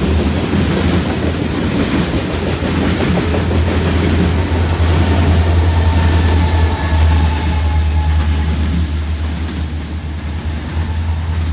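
Tail end of a CN freight train passing close by. Loaded covered hopper cars roll past with wheel clatter on the rails, then the rear distributed-power diesel locomotive, CN 8830, passes with its deep engine drone loudest around the middle. Faint wheel squeal is heard, and the sound fades as the train moves away near the end.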